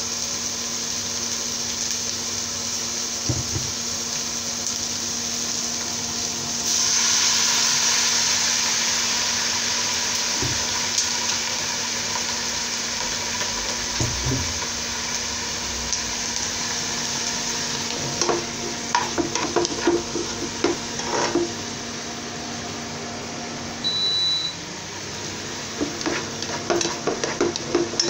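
Chopped onion sizzling in hot oil in a nonstick pot: a steady hiss over a low hum, growing louder about seven seconds in. Past the halfway mark a spatula scrapes and taps against the pot as the onion is stirred. A short high beep sounds near the end.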